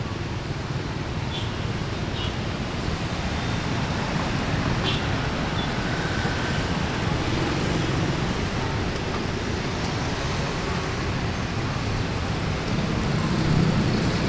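Steady street traffic of motor scooters and cars passing through an intersection on wet pavement, growing louder near the end as vehicles come closer.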